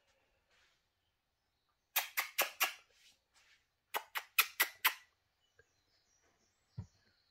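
Two quick runs of sharp impacts, four and then five at about five a second, followed by a single low thump near the end.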